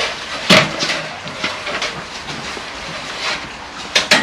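Clatter and scraping of loose block-wall debris being moved by hand: a sharp knock about half a second in, scattered scrapes and small knocks, then two sharp knocks close together near the end.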